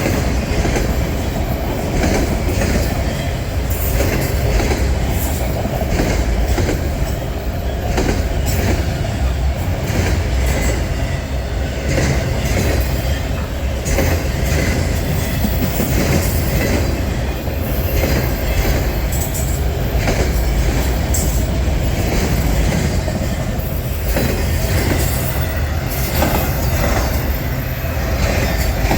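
Freight train cars rolling past at close range: a steady loud rumble with sharp wheel clicks every second or two as the wheels cross rail joints.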